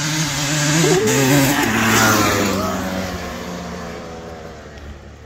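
Honda CR250 two-stroke single-cylinder dirt bike engine revving up and down as it rides past, then fading as it moves away.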